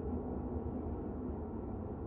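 Soft, steady ambient music drone with a deep low rumble underneath.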